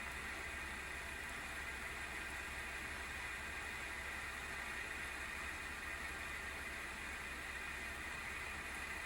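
Cooling fan of an ASUS GeForce RTX 3060 12GB Phoenix graphics card spinning under benchmark load, a steady whir with a pronounced high-pitched note over a low hum. The noise is abnormal: the owner puts it down to a failing fan, its shaft worn loose or its oil dried out.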